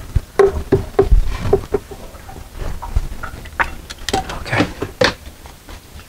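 Scattered light knocks, clicks and rustles of handling close by, irregular and uneven in loudness, with a short spoken "okay" near the end.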